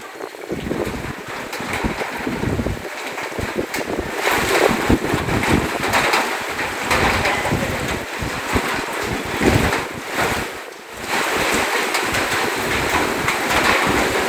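Flowing and splashing floodwater, with wind buffeting the microphone in gusty low rumbles.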